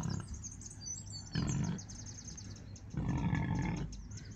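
Two low, rumbling animal calls, a short one about a second and a half in and a longer one about three seconds in. Small birds chirp briefly near the start.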